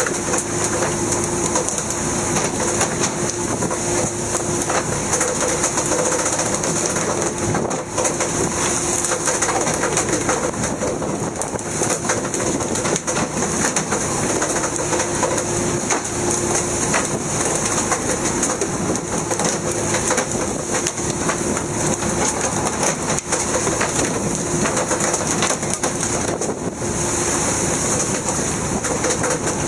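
Steady mechanical drone with a constant hum and a hiss, unchanging throughout.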